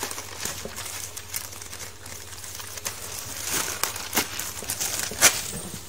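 Plastic packaging bag crinkling as hands open it and handle the mesh net bag of filter media inside, with a few sharp clicks; the loudest is about five seconds in.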